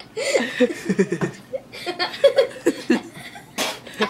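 People laughing and giggling in short, choppy bursts, with a brief rush of noise near the end.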